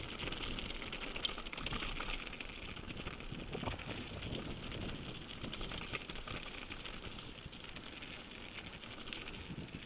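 Mountain bike descending a gravel trail: tyres crunching and rattling over loose stones, with a steady rapid clicking and a low rumble.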